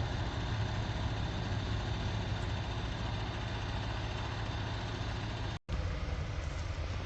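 A heavy vehicle engine runs steadily with a low drone. The sound drops out completely for an instant about five and a half seconds in, then the same drone carries on.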